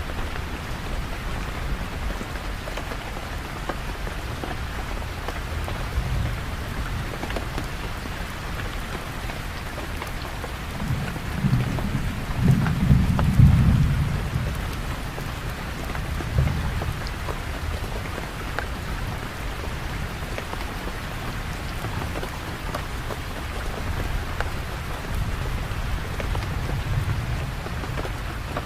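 Steady heavy rain falling. A low rumble of thunder swells and fades about halfway through, with fainter rumbles later.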